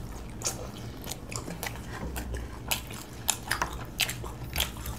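Two people biting into and chewing crisp fried chicken chops, with irregular crunches.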